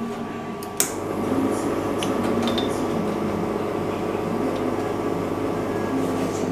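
A sharp clack about a second in, then the steady hum of a La Marzocco espresso machine's pump as an espresso shot starts brewing, with a few light glass clinks.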